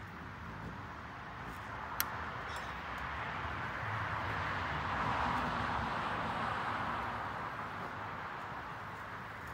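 A vehicle passing on a road, its tyre and engine noise swelling over a few seconds and fading away, with a single sharp click about two seconds in.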